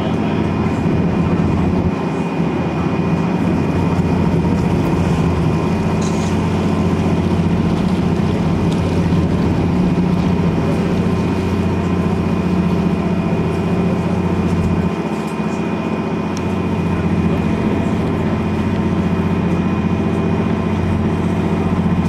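Boat engine running steadily under way, heard on board as a low drone with a faint, steady high whine over it.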